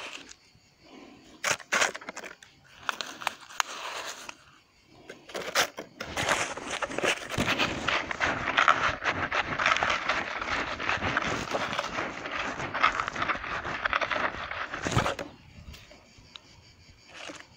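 Fine sand poured from a cup into a cut-off plastic bottle, adding the sand layer of an improvised water filter: a few knocks and rustles of plastic being handled, then a steady grainy hiss of pouring for about nine seconds that stops suddenly.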